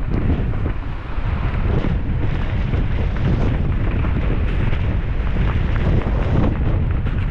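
Strong gusting wind buffeting an action camera's microphone: a loud, steady rumble.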